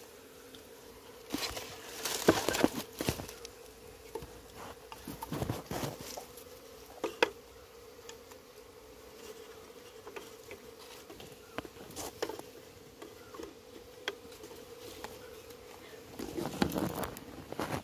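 Honeybees buzzing in a steady hum, with irregular clicks and rustles from handling the wooden hive frames, comb and dry leaves. The handling is loudest about two seconds in and near the end.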